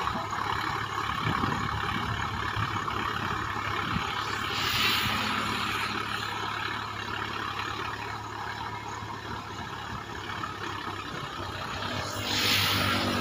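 Sonalika tractor's diesel engine running steadily as it works through a flooded paddy field, with two brief hissing swells, about five seconds in and near the end.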